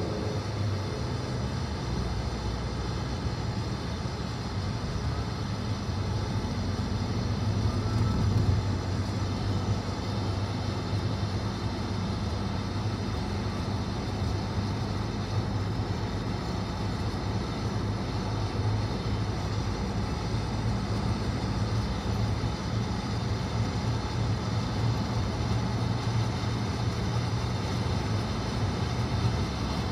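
Car driving at road speed, heard from inside the cabin: a steady low drone of engine and tyre noise.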